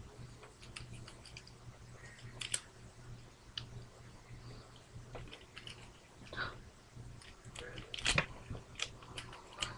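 Plastic parts of a Transformers Ironhide figure clicking and rattling as it is twisted and folded by hand, with scattered small clicks and one sharper snap a little after eight seconds. A steady low electrical hum lies under it.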